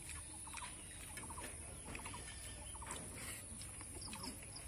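Quiet rural ambience: a bird calling in short clusters of chirps every second or so, over a steady high-pitched insect drone.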